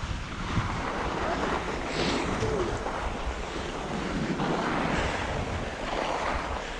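Skis hissing and scraping over packed snow on the edges through turns, swelling every second or two, with wind rushing on the microphone.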